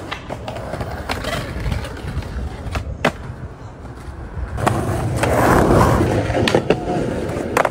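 Skateboard wheels rolling on concrete, with several sharp clacks of the board, the loudest about three seconds in. The rolling grows louder past the middle.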